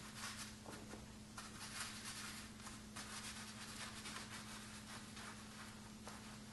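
Faint, soft scratching of a Chinese ink brush stroking and dabbing on paper, in a series of short strokes, over a steady low hum.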